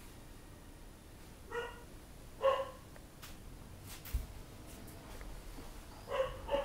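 A dog barking: short high yaps, two about a second apart, then two more near the end.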